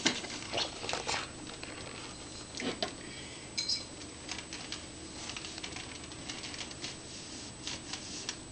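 Scattered light rustles, taps and clicks of small objects being handled, with a brief higher-pitched squeak or crinkle about three and a half seconds in.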